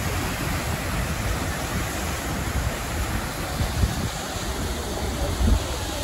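Waterfall pouring into a river: a steady rush of falling water. Wind buffets the microphone in irregular low gusts.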